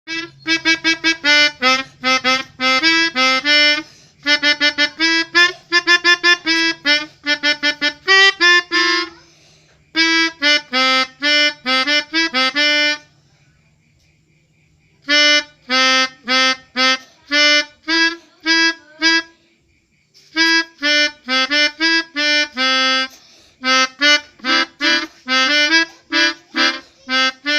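Multi-tone 'telolet' horn playing quick melodies of short staccato notes, in several runs with short pauses between them. A faint low hum sits under the first half.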